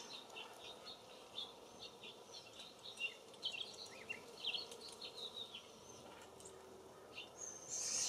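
Small songbirds giving many short chirps and high call notes, over a faint buzzing of honey bees. A brief louder burst comes near the end.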